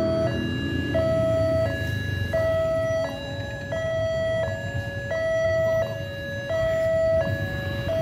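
Railway level-crossing warning siren, an electronic two-tone alarm alternating evenly between a higher and a lower note about every 0.7 seconds, sounding while the barriers are down to warn that a train is approaching.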